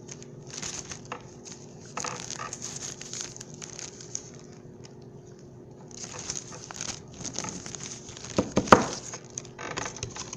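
Rustling and crinkling handling noise in short spells, with a few sharp knocks about eight and a half seconds in.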